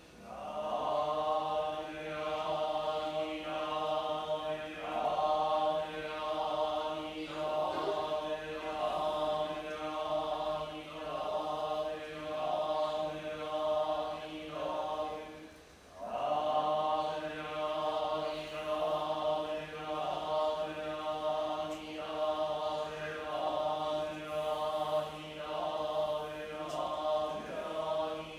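Japanese Buddhist monks chanting together in unison on one steady pitch, in short, evenly paced syllables, the liturgical chanting of a Buddhist memorial service. About halfway through the voices stop briefly for breath, then take up the chant again.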